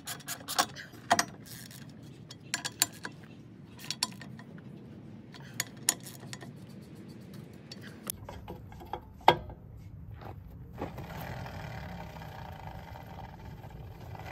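Scattered metal clicks and clinks of a socket on an extension turning the lug nuts on a stump grinder's wheel hub. About two thirds in, a steady low rumble comes up behind it.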